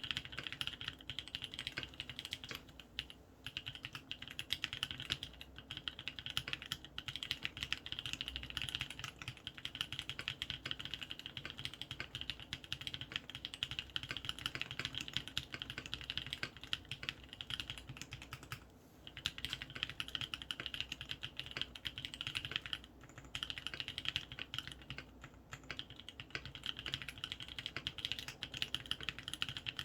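Steady, fast typing on a Matrix Noah full-aluminium mechanical keyboard with lubed Kailh Cream linear switches, an aluminium plate and ePBT keycaps. The keystrokes run in dense runs broken by a few short pauses.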